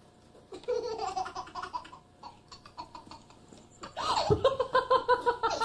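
Baby laughing: a short laugh about half a second in, then from about four seconds in a loud, quick run of belly laughs.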